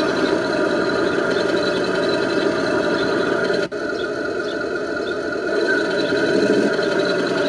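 Simulated engine idle from an RC M1A2 Abrams tank model's sound unit, running steadily, with a brief break a little past the middle.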